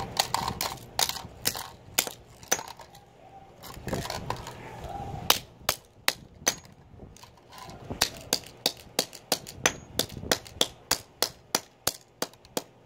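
Small, sharp knocks and clicks of a cheap camcorder's circuit board and plastic being struck and broken apart: scattered at first, then a steady run of about three knocks a second from about eight seconds in.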